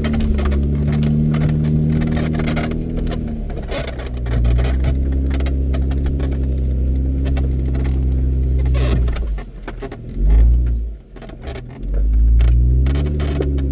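Off-road vehicle engine at low speed crawling over rough trail, the revs rising and falling, with scattered knocks and rattles. About nine seconds in the engine drops away briefly, then a loud low rumble comes back and the revs climb again.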